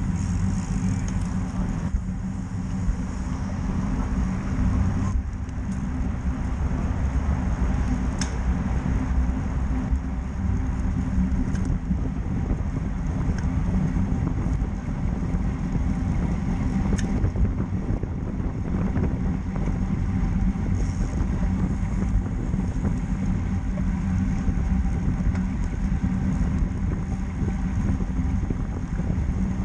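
Wind rushing over the microphone with a steady low road rumble, as heard from a moving bicycle, with a couple of faint clicks.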